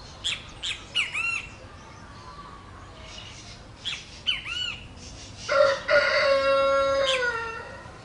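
A bird chirps in quick arched notes in small clusters. About five and a half seconds in, a rooster crows: one long held call, the loudest sound, falling away at the end.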